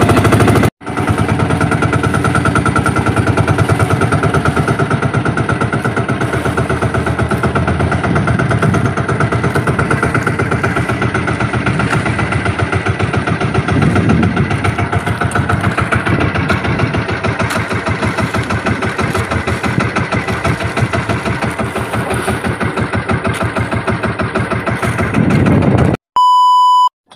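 Fishing boat's engine running steadily under way, a fast even chugging. Near the end it gives way to a steady test-tone beep lasting about a second.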